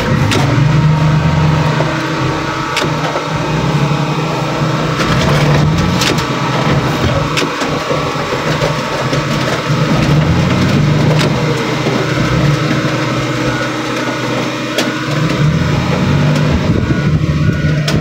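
Car crusher running under load, its engine pitch dipping and recovering as it works. Scattered sharp cracks and pops come from the car body being crushed.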